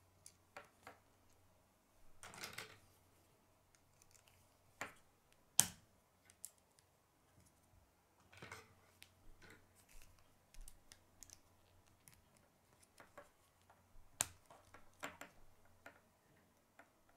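Plastic K'nex rods, connectors and gears clicking and rattling as they are handled and snapped together. Scattered faint clicks, with sharper snaps about five and a half seconds in and again near fourteen seconds.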